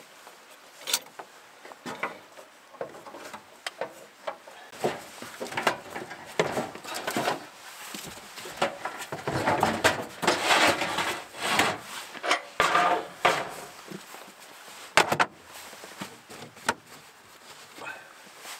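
Someone rummaging through small wooden cabinets in a cramped wood-panelled camper: irregular knocks and clatters of things being moved about, with a busier stretch of rustling and scraping in the middle.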